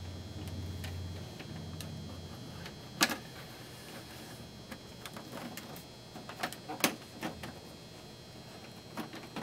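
Sharp plastic clicks and taps from hands handling the cockpit canopy panels of a 1/6-scale Hot Toys Tumbler model: one loud click about three seconds in, a cluster of clicks around six to seven seconds, and another near the end. A low hum fades out after about two seconds.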